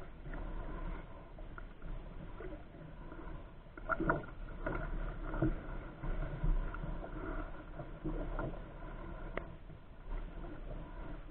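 Paddle strokes from a solo pack canoe: a double-bladed paddle dipping and pulling through calm water, with splashing and dripping from the blades and a few sharp knocks.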